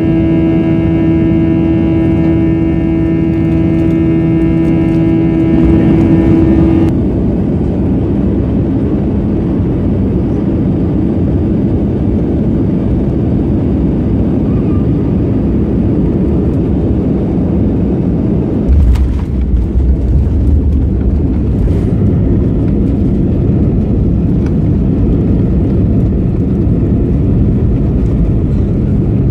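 Airbus A320 cabin noise on final approach: a steady roar of engines and airflow, with a steady droning tone over it that cuts off about seven seconds in. About two-thirds of the way through, a sudden thump as the wheels touch down, followed by a heavier low rumble of the landing gear rolling on the runway.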